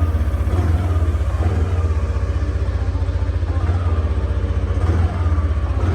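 Yamaha NVX scooter's single-cylinder engine idling steadily with a fast, even pulse, running on a newly fitted battery.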